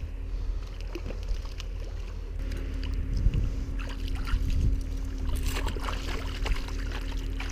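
Water splashing and sloshing in the shallows of a lake edge as trout are handled on a stringer, with a cluster of splashes in the second half. Wind rumbles on the microphone throughout.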